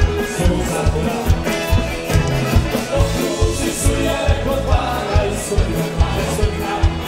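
Live band playing an upbeat dance tune: a drum kit keeps a steady, even beat under bass, electric guitar and keyboards.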